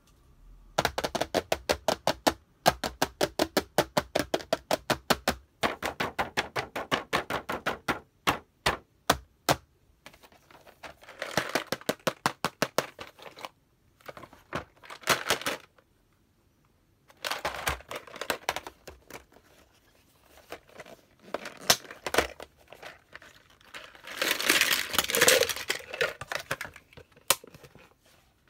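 Rapid tapping on plastic toy packaging, about seven taps a second in runs of several seconds, followed by spells of scraping and crinkling as the plastic toy cases are handled.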